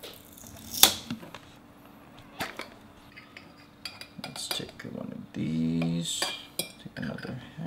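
A glass jar's metal lid twisted open with one sharp click about a second in, then a metal utensil clinking lightly against the glass jar as preserved lemon wedges are fished out. A short hum of a voice comes about two-thirds of the way through.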